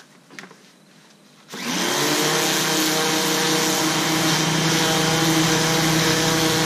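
Electric pressure washer starting up about a second and a half in, then running steadily: the motor and pump hum under the hiss of the water jet spraying a rifle stock.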